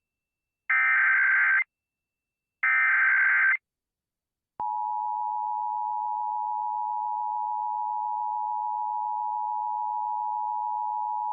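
Emergency Alert System broadcast signal. Two raspy digital data bursts of the SAME header, each about a second long and a second apart, are followed by a second of silence. From about four and a half seconds in comes the steady two-tone EAS attention signal (853 and 960 Hz), which announces a Child Abduction Emergency (Amber Alert).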